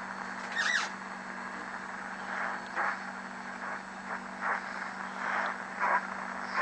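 Allied SX-190 shortwave receiver being tuned across the band: a steady hiss and hum from the speaker, with a quick warbling whistle about a second in and then several short bursts of station signal sweeping past as the dial turns.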